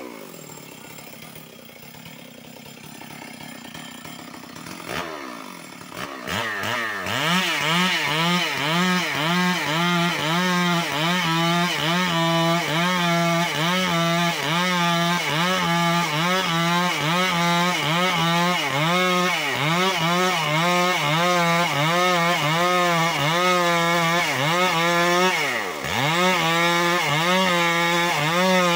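Two-stroke chainsaw ripping lengthwise along a suren log. After a quieter first few seconds it revs up about six seconds in and runs at full throttle, its pitch wavering up and down as the chain loads in the cut, with a brief dip near the end.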